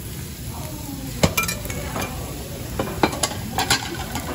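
A metal spoon stirs and scrapes rice in a hot pot on a tabletop burner, clinking sharply against the pot about five times, once a second in and several times between three and four seconds in. Under it is a steady sizzle from the heated pot.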